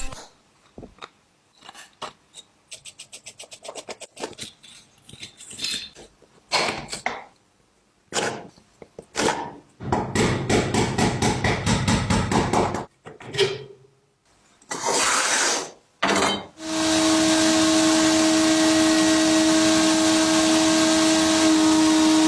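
Small metal parts being handled and worked: scattered clicks and knocks, a quick run of even ticking, and rough bursts of scraping or grinding. About two-thirds of the way through, a power tool's electric motor starts and runs steadily with a constant hum.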